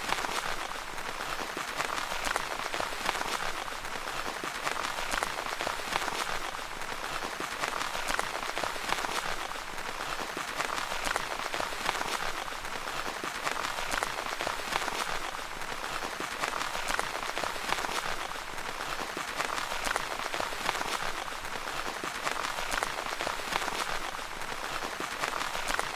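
Rain falling steadily on a tent, a dense patter of many small drop hits.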